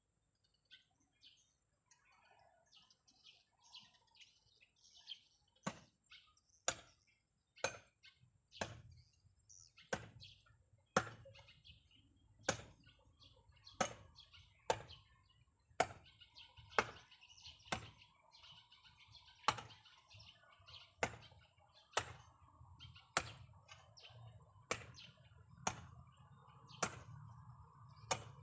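Repeated sharp chopping strikes, roughly one a second, starting a few seconds in, with small birds chirping throughout.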